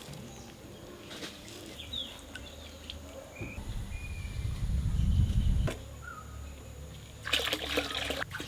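Water trickling, with short bird chirps scattered through. A louder low rumble rises about three and a half seconds in and stops suddenly near six seconds, and a short noisy burst comes near the end.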